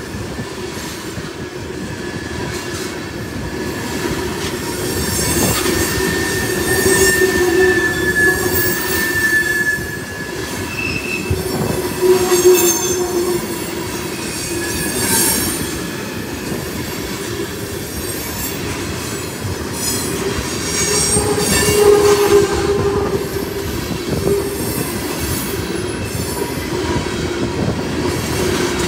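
Train of tank cars rolling past on a curve: a steady rumble of steel wheels on rail, with wheel squeal from the curve in several high, drawn-out tones that come and go and swell louder a few times.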